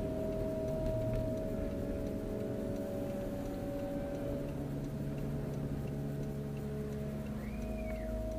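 A car's engine and tyres running, heard from inside the cabin while driving slowly: a steady drone made of several hum tones that shift slightly in pitch partway through.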